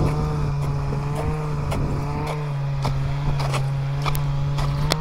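A small petrol engine idling steadily, with irregular sharp knocks of a wooden-handled pole striking ice as a sawn slot in lake ice is broken open.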